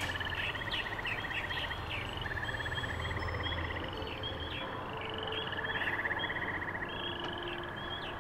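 Chorus of green water frogs calling: repeated rattling trills, each under a second long, with short chirps over them.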